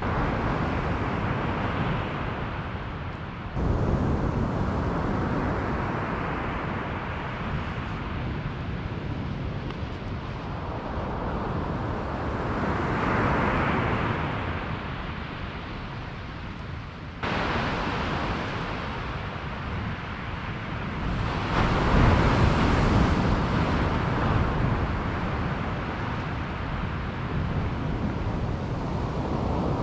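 Waves breaking on a beach, the surf swelling and falling back, with wind rumbling on the microphone. The sound jumps suddenly louder twice, about three and a half seconds in and about seventeen seconds in.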